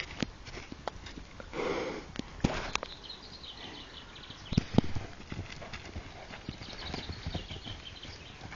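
Horses moving about close by on grass: scattered knocks and thuds, with a short rushing burst about two seconds in and the loudest knocks a little after the middle.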